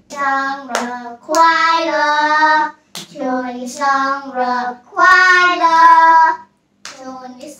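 Young children singing a song, in phrases of long held notes, with a few sharp hand claps between them.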